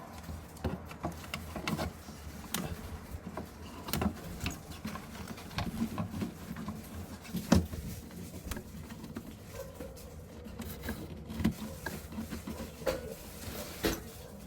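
Refrigerator fan parts being handled by hand: irregular clicks, taps and light scraping over a low, steady hum.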